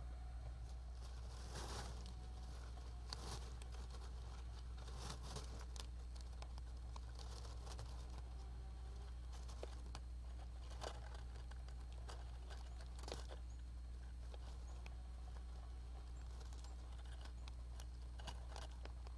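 Japanese giant flying squirrel stirring inside its wooden nest box: faint scattered rustles and scratches in the nesting material, a few at a time. They sit over a steady low electrical hum from the camera setup.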